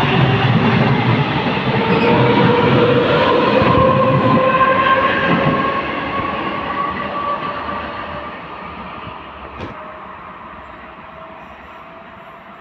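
A CP suburban electric multiple unit accelerating away from a station platform: the traction motors whine, rising slowly in pitch, over the rumble of wheels on rail. The sound fades steadily as the train draws away, and there is a single sharp click near the end.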